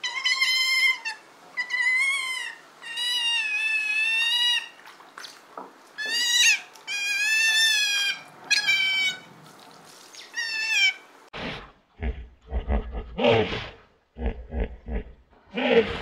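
An animal calling over and over: about ten high, wavering cries, each half a second to a second and a half long. About eleven seconds in they give way to lower, rougher calls in short bursts.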